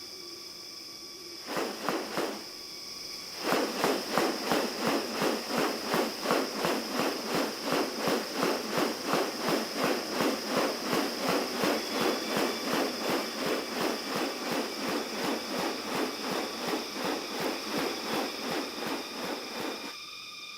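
A steady high insect drone, with a rapid, even pulsing of about three beats a second that starts about three seconds in and runs most of the way through, louder than the drone. Two short sweeping sounds come before the pulsing.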